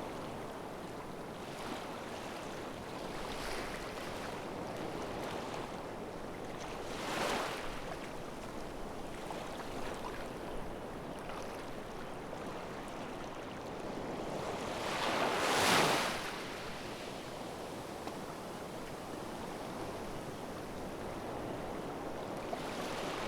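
Ocean waves washing ashore: steady surf, with a louder wave about a third of the way in and a bigger one breaking a little past the middle.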